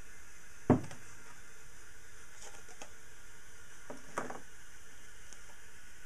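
A galvanized pipe leg with a metal floor flange set down on a wooden workbench, one sharp knock about a second in. Fainter knocks and light clicks follow around four seconds as plastic cups are handled, over a steady hiss.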